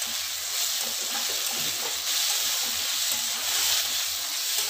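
Finely chopped cauliflower and beans sizzling in oil in a steel kadai, stirred with a spatula.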